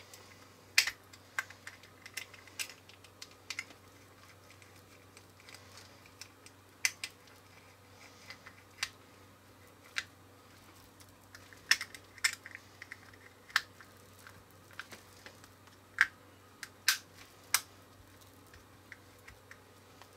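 Hard plastic pieces of a toy eyeball capsule clicking and tapping against each other as they are handled and pressed together: scattered sharp clicks at irregular intervals, some in quick pairs.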